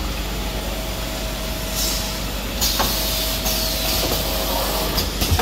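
Steady running noise of a napkin bagging machine and the factory machinery around it, with a faint steady tone. Short hisses of compressed air, one about two seconds in and another about three seconds in, with a click between them.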